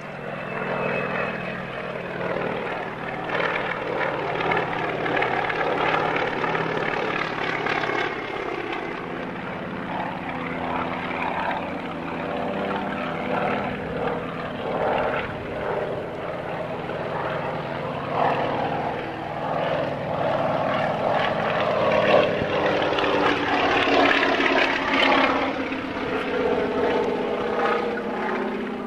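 Piston-engined propeller aircraft flying display passes overhead, the engine drone rising and falling in pitch and loudness as the aircraft manoeuvres. It is loudest a little past the middle.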